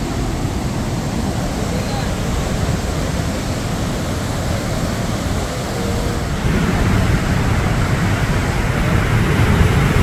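Godachinamalaki Falls on the Markandeya River in full flood: a steady, heavy rushing of water over the falls. It grows louder about two-thirds of the way in.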